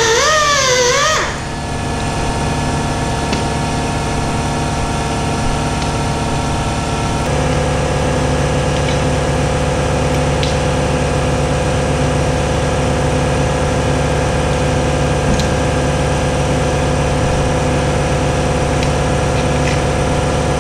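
Guitar music cuts off about a second in, giving way to a steady mechanical hum of a running machine. The hum changes slightly in tone about a third of the way through.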